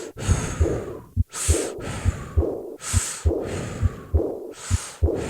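Stethoscope sounds of a patient with aortic regurgitation breathing normally: rhythmic breath sounds drawn in and out, over steady low heart-sound thumps. The high-pitched, blowing diastolic murmur of aortic regurgitation lies under the breaths, so similar in pitch to them that it is largely masked.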